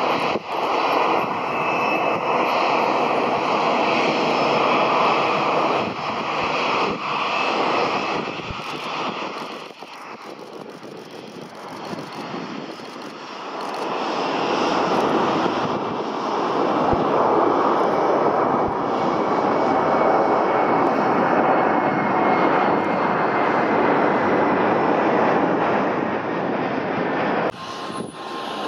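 Airliner engines running loud. They ease off around ten seconds in, then build back to a steady loud rush, with a faint whine falling slowly in pitch during the later part.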